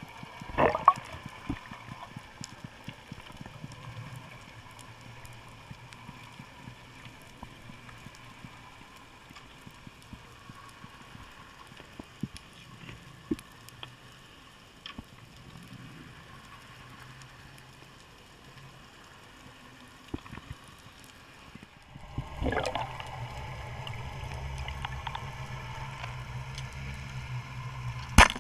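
Underwater sound through a camera's waterproof housing: low water rushing and gurgling with many faint scattered clicks and crackles. A few sharp knocks stand out, one about a second in and one near the end, and the low rushing grows louder for the last several seconds.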